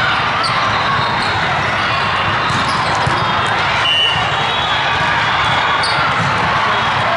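Volleyballs being struck and bouncing over the steady din of a big tournament hall full of volleyball courts, with crowd voices and play from many courts at once. A sharper ball hit comes about four seconds in.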